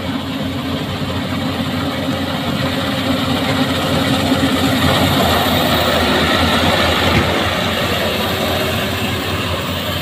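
Yanmar YH850 rice combine harvester running while it cuts and threshes rice: a steady engine-and-machinery din that grows louder as the machine comes close about halfway through, then eases off.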